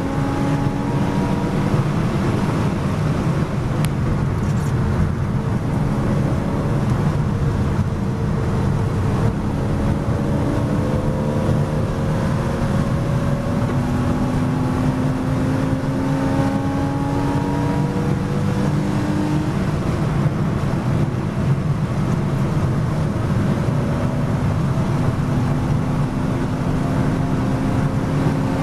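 Porsche Boxster S race car's flat-six engine under hard acceleration, heard inside the cockpit. Its note climbs in several long pulls, each cut off at an upshift, over a heavy low rumble of road and wind noise.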